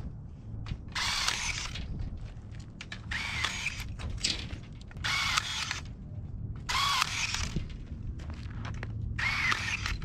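Cordless drill run in about six short bursts, each spinning up and winding down, twisting ties at the rebar crossings.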